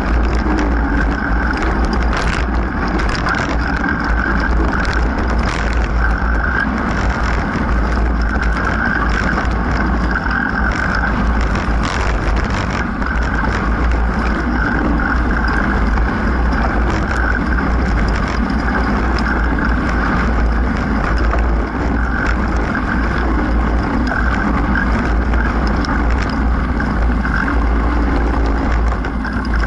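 Mountain bike riding fast on a dirt trail, heard from an on-board action camera: steady wind buffeting the microphone over tyre noise on the dirt, with frequent knocks and rattles as the bike goes over bumps.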